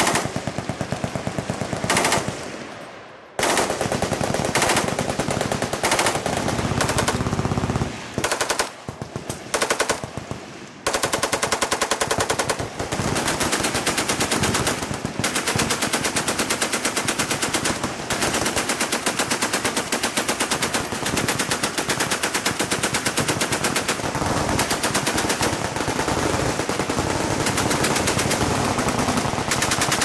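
Full-auto machine-gun fire in long rapid bursts, broken by short pauses in the first ten seconds or so, then near-continuous rapid fire from about eleven seconds in.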